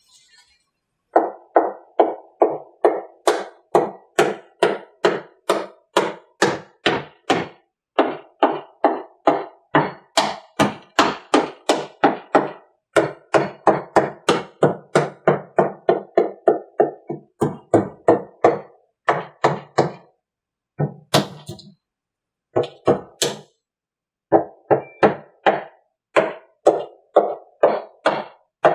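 Rubber mallet striking fiberglass molds, a newly laid-up male mold still seated in the original female, in quick blows about two a second with a few short pauses. The shock of the blows is meant to break the new mold free.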